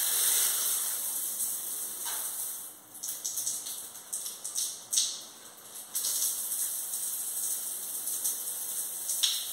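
Overhead shower running from the hot-water valve alone, a steady hiss of spray falling onto the tiled floor. The hiss drops away for a few seconds in the middle and then comes back.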